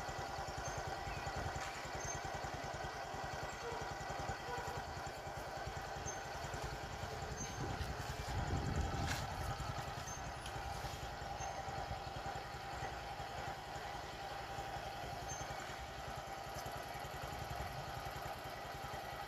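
A motor idling steadily, with a louder low rumble for a moment about eight or nine seconds in.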